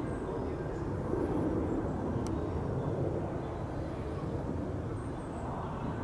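Steady low outdoor rumble with no distinct event, and a single faint click about two seconds in.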